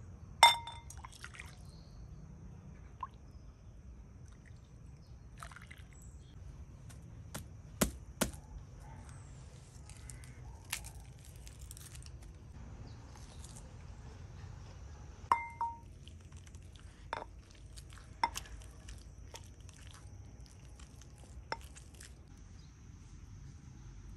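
Scattered clinks and knocks of cooking utensils and dishes, a few ringing briefly, loudest just after the start and about fifteen seconds in.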